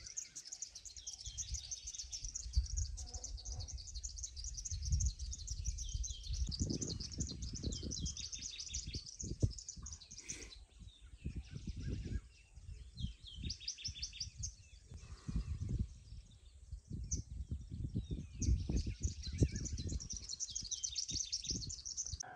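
Birds calling in the early-morning chorus: rapid, high repeated chirps and trills throughout, over irregular low rumbles on the microphone.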